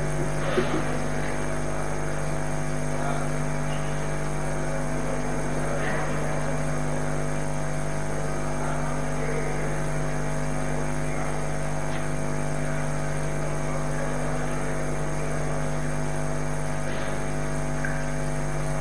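A steady electrical hum and buzz of many even overtones that does not change, with faint indistinct voices under it now and then.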